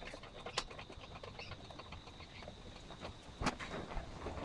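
Faint light clicks and taps of small parts being handled, with a sharper click just after the start and a louder one about three and a half seconds in.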